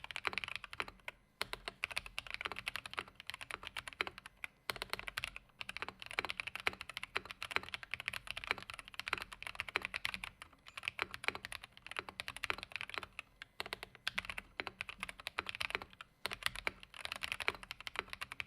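Continuous fast typing on a custom Anne Pro 2 mechanical keyboard with lubed Akko Orange linear switches, tape-modded and foam-filled, a dense run of keystroke clicks with a few short pauses.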